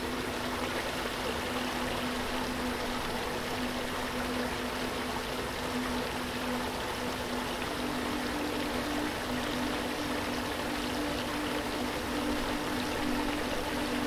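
Steady rush of flowing water, as from a waterfall, with a low sustained musical tone underneath; a second, slightly higher note joins about halfway.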